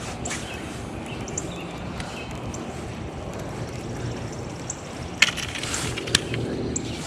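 Baitcasting reel being cranked over a steady low rumble, with two sharp clicks about five and six seconds in.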